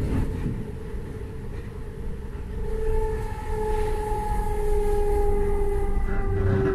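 ÖBB class 4020 electric multiple unit heard from inside the passenger car: steady rumble of the wheels on the rails, with an electric whine that sets in about three seconds in and slowly falls in pitch.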